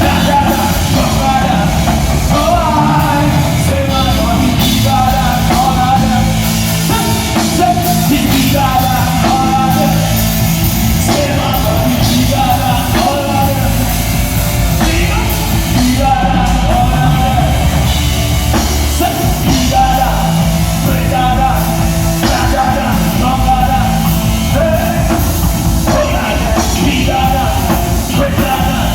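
A live band playing a song loudly and without a break: a full drum kit and bass under a wavering lead melody line, heard at a sound check.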